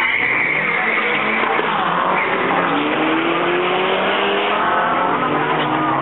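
A Toyota MR-S roadster and another car launch off a drag strip start line and accelerate away side by side. The engine note climbs steadily from about halfway through, with music playing along.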